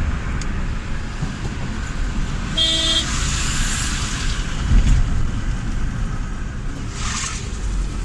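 Steady low rumble of a car driving, heard from inside the cabin, with a vehicle horn tooting briefly about two and a half seconds in.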